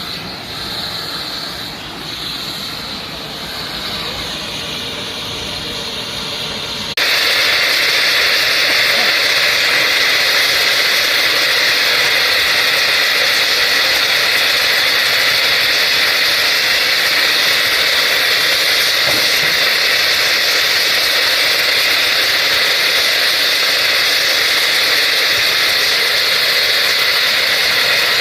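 A steady hissing roar from the thermite rail-welding work, which starts abruptly about seven seconds in and is much louder than the engine-like rumble before it.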